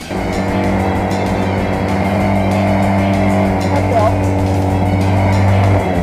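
Engine of a radio-controlled racing boat running at a steady speed, with one even pitch throughout, over background music.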